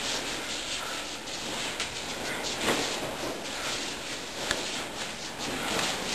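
Karate sparring: feet scuffing and moving on the floor, with a few short sharp knocks or slaps, the sharpest about four and a half seconds in, over a steady hiss.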